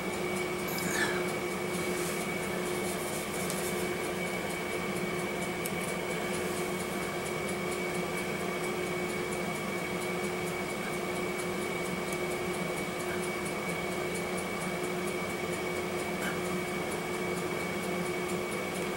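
Steady hum of a running room appliance, with a constant low tone and a thin, steady high whine over a faint hiss.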